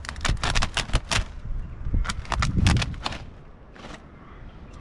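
A quick run of sharp clicks and crackles in two bursts, with one more near the end.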